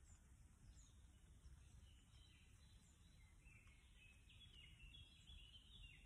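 Near silence in woodland with faint birdsong: a bird singing a quick run of high notes, strongest in the second half, after a few brief high chirps in the first second, over a faint low rumble.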